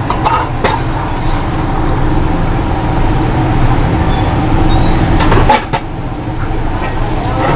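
Steady low roar of a gas wok burner, with a few sharp clinks of a metal ladle against pots. The roar drops out briefly about five and a half seconds in.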